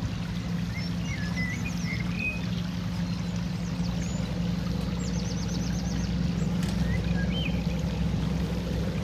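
Small birds chirping over a steady low hum. About five seconds in, one bird gives a fast run of about eight high notes.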